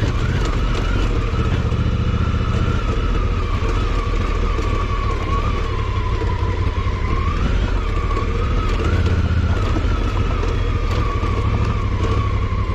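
Honda Africa Twin CRF1000L's 998 cc parallel-twin engine running as the adventure bike is ridden off-road over a rough dirt trail, its note wavering slightly up and down with the throttle.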